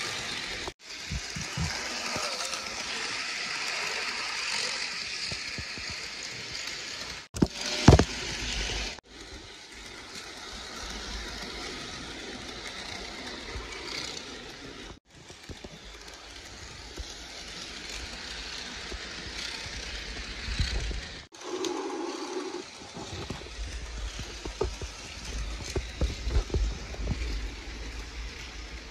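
HO scale model train running on sectional roadbed track: the BNSF GP40-2R locomotive's motor whirring and the freight cars' wheels rattling and clicking over the rail joints. A sharp knock about eight seconds in, and the sound cuts off abruptly several times.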